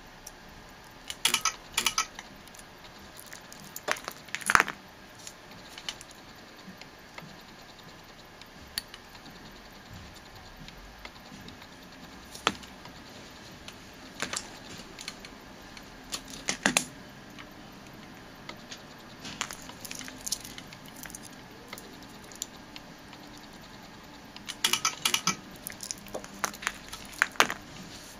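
Scattered sharp clicks and snaps, often in quick clusters of two or three, the loudest a little over four seconds in: a homemade microwave-oven-transformer spot welder firing short weld pulses through hand-held copper probes pressed onto a metal tab on a cylindrical battery cell, mixed with the clack of the probes and cell being handled.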